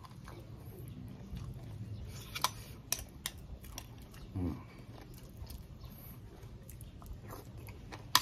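A person chewing raw beef and liver, with faint wet mouth clicks throughout. A few sharp clicks of a metal spoon against the sauce bowl come a few seconds in, then a short hum from the eater.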